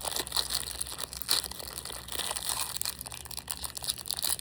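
Packaging crinkling and rustling as it is handled, in a run of irregular crackles.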